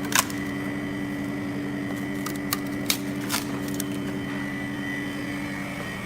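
LCD freeze-separator machine's refrigeration unit running with a steady hum and a faint high whine, while a few sharp clicks sound from the frozen tablet glass being pried off its frame.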